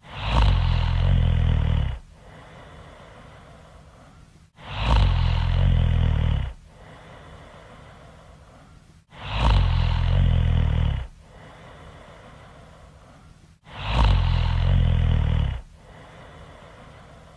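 Loud snoring: four long snores of about two seconds each, repeating evenly about every four and a half seconds, with much quieter stretches between them.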